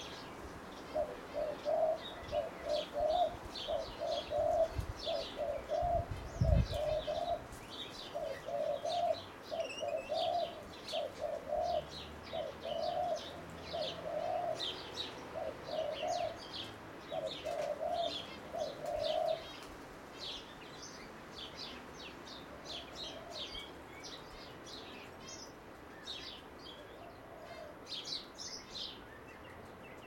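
A dove cooing in a long run of short, evenly repeated low notes that stops about two-thirds of the way through, over thin high chirps from small birds throughout. There is a single low thump about six seconds in.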